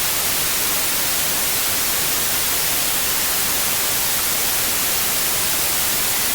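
A loud, perfectly steady hiss like static, even and unbroken, with no crackle or pops in it.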